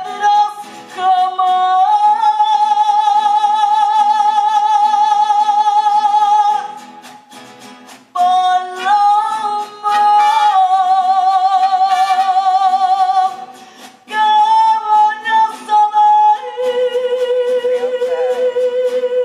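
Mariachi music: a female singer holds long notes with a wide vibrato over strummed guitars and violins, with two brief breaks between phrases and a steadier held note near the end.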